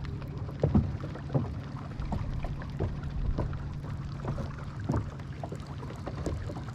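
Irregular light knocks and splashy clicks from a fishing kayak on the water over a steady low hum, while a hooked fish is being played.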